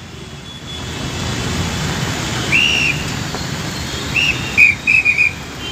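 Heavy rain and road traffic make a steady wash of noise. Short high-pitched toots sound once about two and a half seconds in, then again as a quick run of several near the end.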